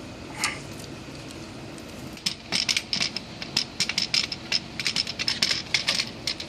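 A rapid, irregular clatter of light clicks and rattles, several a second, starting about two seconds in, from a pressure-washer hose and its fittings being handled and coiled for storage.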